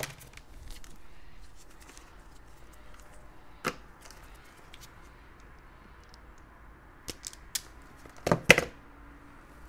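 Light handling clicks of a mains cable and plastic plug parts, then near the end a close pair of loud, sharp clacks as a wire stripper is picked up and worked on the cable's wire.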